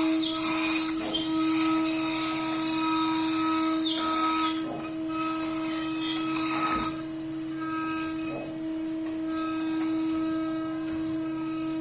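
CNC router spindle running with a steady high whine while its bit cuts a WPC (wood-plastic composite) sheet, with short noisy sweeps of cutting every second or two.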